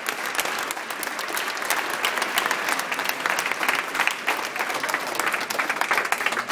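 Large audience giving a sustained standing ovation: dense, steady applause of many hands clapping in a cinema auditorium.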